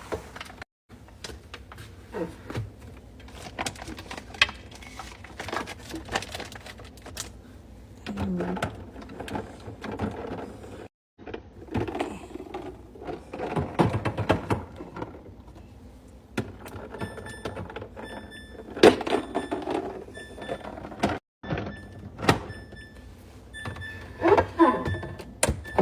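Jars, bottles and food containers knocking and clattering as they are set onto refrigerator shelves and door bins. From about two-thirds of the way through, a run of short high electronic beeps repeats at an even pace, the refrigerator's door-open alarm.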